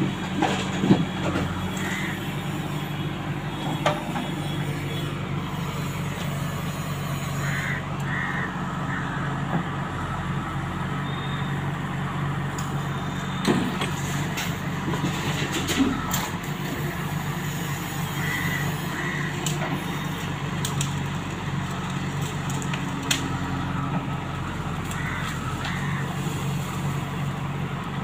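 JCB 3DX backhoe loader's diesel engine running steadily under load as the backhoe arm digs and dumps soil into a tipper truck, with a few sharp knocks from the bucket and falling earth.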